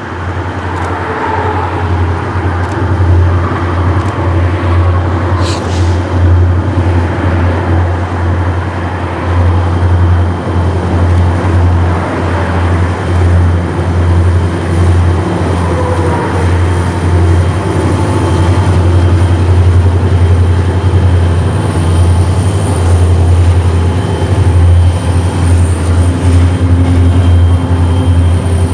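Train passing, a loud steady low rumble with rail noise.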